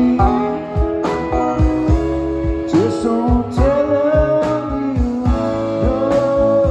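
Live band playing an instrumental passage on electric guitar, pedal steel guitar, electric bass and drum kit. Sustained notes slide up and down in pitch over a steady drum beat.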